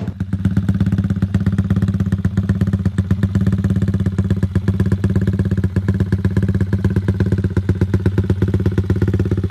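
Yamaha MX King 150 (Y15ZR) single-cylinder four-stroke engine idling with a loping rumble, a 'timing kuda' rumble idle tune, each firing heard as a separate pulse.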